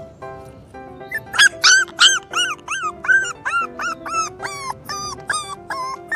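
A dog whimpering in a run of short yelps, about two a second, starting about a second in, loudest at first and slowly falling in pitch. Background music runs underneath.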